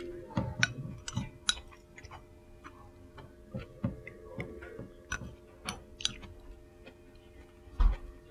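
Someone eating ramen: chopsticks and a spoon click and tap irregularly against the bowl, with slurping in between. There is a heavier low bump near the end.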